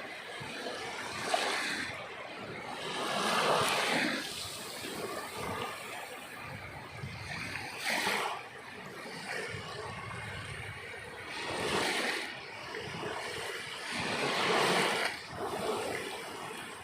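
Sea waves breaking and washing onto a shore. A swell of surf comes every three to four seconds, then fades back to a steady wash.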